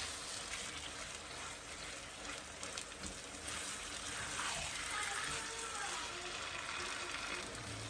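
Chicken and masala frying in a pan: a steady sizzle.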